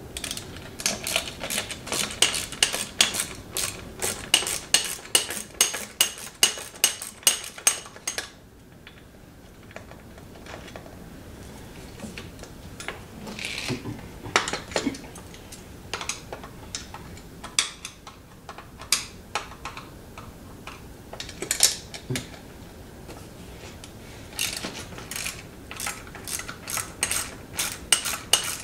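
A small ratchet clicking in quick runs, stroke after stroke, as screws are backed out of the end of an electric starter motor's plastic housing. The clicking goes on for about eight seconds, gives way to a few scattered clicks and knocks, and picks up again near the end.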